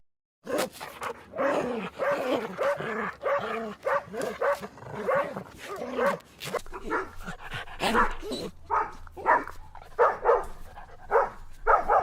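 Dogs barking repeatedly, about two barks a second, starting after a brief silence; in the second half the barks are shorter and sharper.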